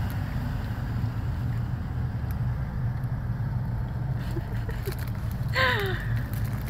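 Steady low rumble of road and engine noise inside a moving car's cabin. A short voice sound with falling pitch comes near the end.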